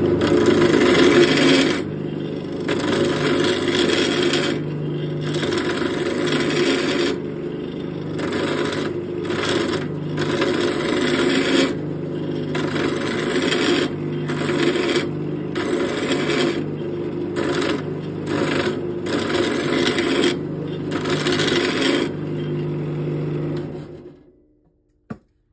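Wood lathe running with a steady motor hum while a hand-held turning tool scrapes and cuts the spinning wooden grip blank in repeated passes. Each pass brings a burst of scraping. About a second before the end the lathe is shut off and the sound quickly dies away.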